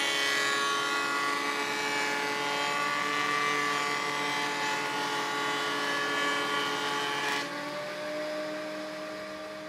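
Electric surface planer (jointer) running with a steady whine while a wooden board is pushed across its cutter block, with a rough cutting noise over it. About seven and a half seconds in, the board clears the cutter, the cutting noise stops, and the machine runs on with just its whine, fading a little.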